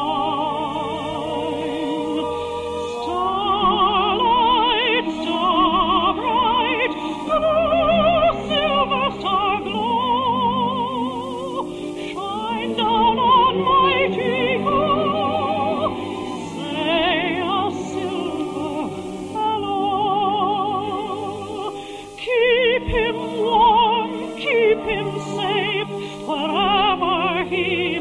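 Operatic singing with a wide vibrato over an orchestra, from an early-1950s radio broadcast recording with no treble above about 4 kHz. The music briefly drops away about 22 seconds in, then comes back.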